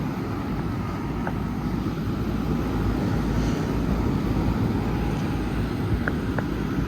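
Two 2017 Rheem central air-conditioner condensing units running side by side: their condenser fans and Copeland scroll compressors make a steady, low rushing noise.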